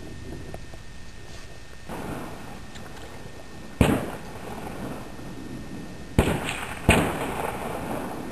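Three gunshots: one about four seconds in, then two more close together a little over two seconds later, each trailing off in a short echo.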